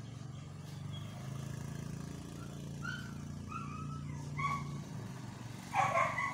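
A vehicle engine running steadily nearby, with short high chirps over it and a louder pitched call near the end.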